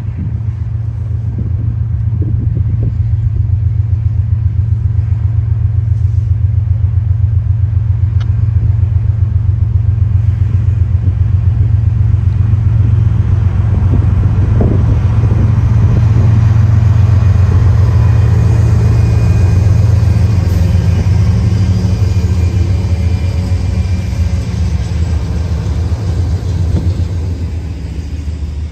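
Freight train passing close: the diesel locomotives' engines give a heavy, low, pulsing throb that grows as the lead units approach and is loudest past the middle. Near the end the rumble and clatter of loaded hopper cars rolling over the rails takes over.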